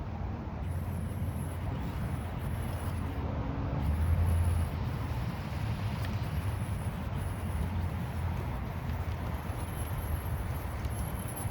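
Small electric motor and gears of an Axial SCX24 micro RC crawler whining faintly, rising and falling in pitch as it is driven, over a steady low rumble that swells briefly about four seconds in.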